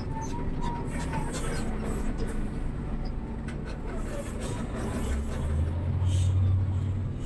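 Diesel engine of an XCMG LW500HV wheel loader running with a low drone, growing louder about five seconds in and easing off near the end.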